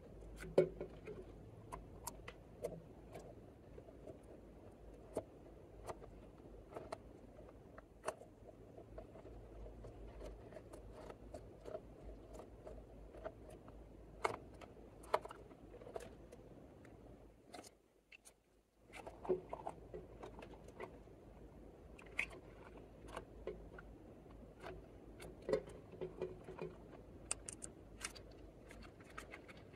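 Clear slime with chunks of lipstick mixed in being squeezed and kneaded by hand, giving off irregular soft clicks and pops as trapped air squeezes out. The sound cuts out briefly a little past halfway.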